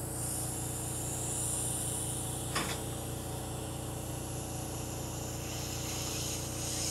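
Surgical suction tip hissing steadily as it vacuums out the nasal cavity after balloon sinus dilation, over a steady low hum, with a short click about two and a half seconds in.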